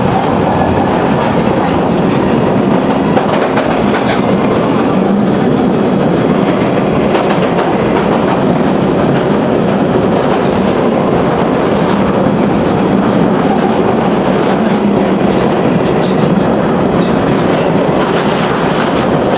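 London Underground Northern line train (1995 Stock) running at speed through a deep-level tube tunnel, heard from inside the carriage: a loud, steady running noise of wheels on rail, with faint clicks over the track.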